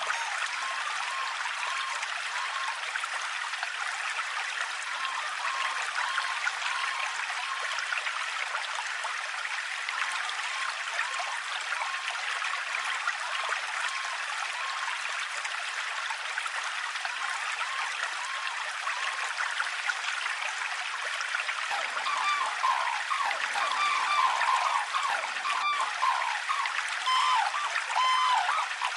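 River water running steadily over shallows, with red-crowned cranes calling in runs of short repeated notes at the start and again, louder, over the last quarter.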